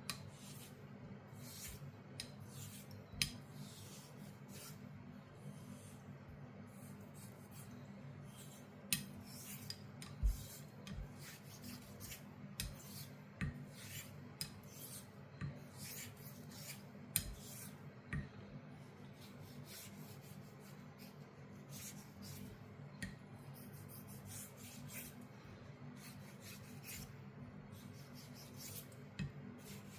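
Sheffield straight razor being honed on a stone: short scraping strokes of the blade at an uneven pace, about one or two a second, over a low steady hum.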